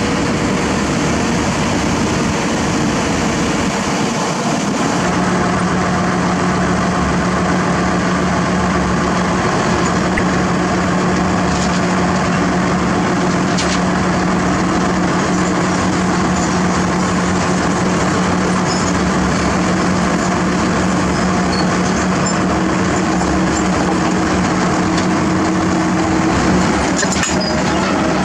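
Kobelco SK200 excavator's diesel engine running steadily under load as the machine crawls onto a self-loader truck's deck, with the rumble and clank of its steel tracks and a few sharp knocks.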